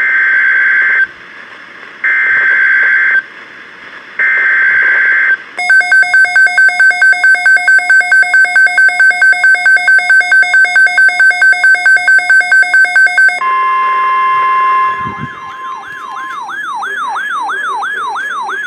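Emergency Alert System tones. Three roughly one-second bursts of screeching digital SAME header data are followed by an electronic alarm that beeps rapidly, several times a second, for about eight seconds. Then comes a brief steady tone, and last a siren-like warble sweeping up and down about three times a second.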